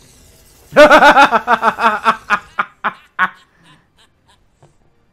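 A man laughing heartily: a quick run of 'ha' pulses starting about a second in, slowing and fading out over roughly two and a half seconds.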